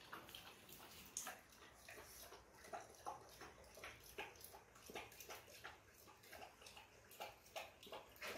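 Pakistani bully dog lapping water from a plastic bucket: faint, quick wet laps, about two or three a second.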